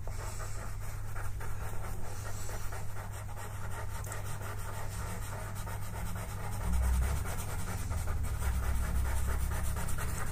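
Pastel pencil scratching on paper in many short shading strokes, over a steady low electrical hum.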